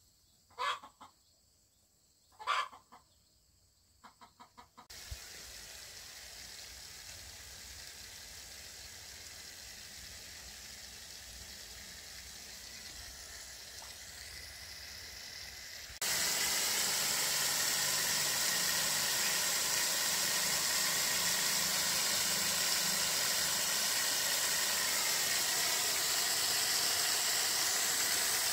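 A chicken calls twice in the first few seconds. Then comes a steady rush of water from a hose running into a metal basin, much louder from about halfway on.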